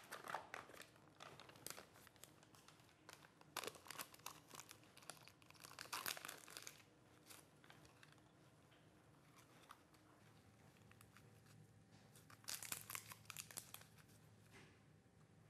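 Faint crinkling and tearing of paper-and-plastic sterile packaging as a syringe and needle are unwrapped by gloved hands, in short bursts near the start, around four and six seconds in, and again near the end.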